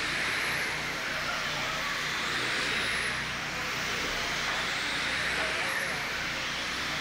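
Electric RC late-model cars with 13.5-turn brushless motors running laps: a steady hiss of motors and tyres, with faint high whines rising and fading a few times as cars pass.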